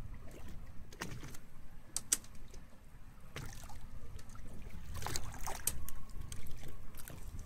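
Fishing boat at sea: a steady low rumble with water lapping at the hull, broken by a few short sharp splashes or knocks, the loudest cluster about five seconds in.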